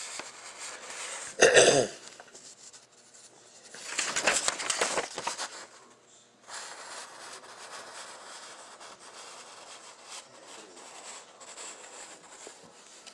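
A printed paper sheet handled in the hand and rustling as it is moved, with a short sharp burst about a second and a half in and a longer, louder rustle about four to five seconds in.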